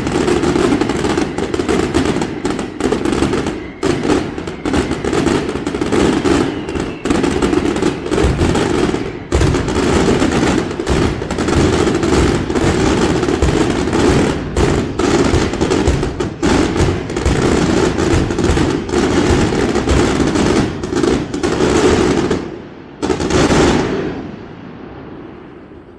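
Fireworks display: dense, rapid volleys of bangs and crackling that run almost without a break, like machine-gun fire. Near the end a last loud burst, after which the noise dies away.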